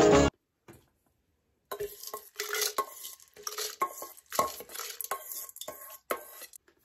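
Metal spoon scraping and clinking against a stainless steel bowl while scooping out rice. It makes a rapid run of clinks over several seconds, each with a short metallic ring.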